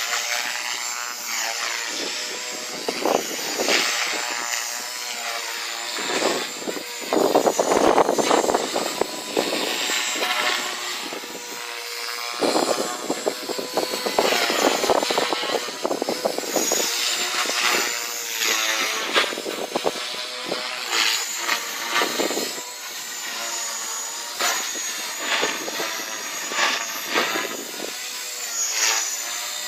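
Small propeller engine running, its pitch rising and falling as the speed changes, with louder rushing bursts, the strongest about eight seconds in.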